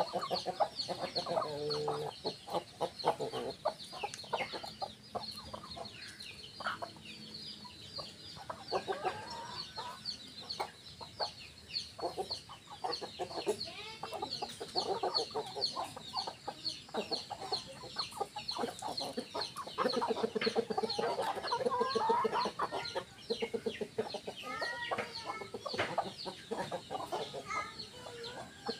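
Village chickens, roosters and hens, clucking as they forage, the clucking busier and louder from about two-thirds of the way through. A steady high chirping runs underneath.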